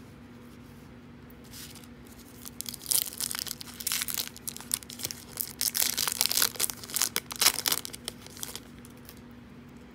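Foil-lined trading-card pack wrapper being torn open and crinkled by hand: a run of crackling and tearing from about three seconds in, lasting until near the end as the cards are worked out of the wrapper.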